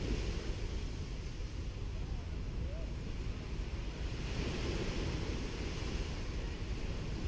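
Gentle sea waves washing onto a sandy beach, with a steady low rumble of wind on the microphone. A wash of surf swells up about four seconds in.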